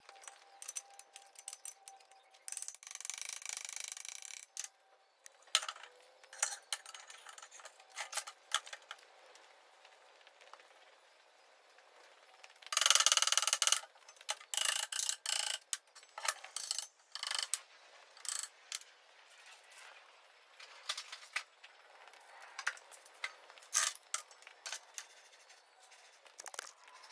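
Steel parts being handled and fitted together: scattered clanks, knocks and clinks as machined end plates and a steel shaft go into a steel conveyor roller tube, with two longer grating sounds, the louder about thirteen seconds in.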